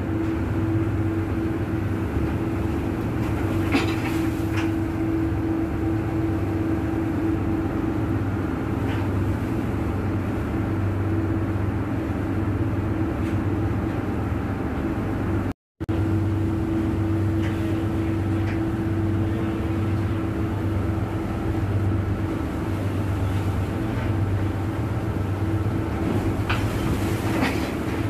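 Offshore vessel's engines and machinery running with a steady low drone and a constant hum, over the rush of sea water along the hull. The sound breaks off for an instant about halfway.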